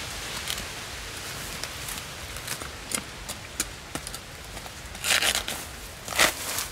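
Dry coconut palm fibre and rotted trunk material crackling and tearing as hands pull it apart, with scattered small crackles and two louder tearing rustles near the end.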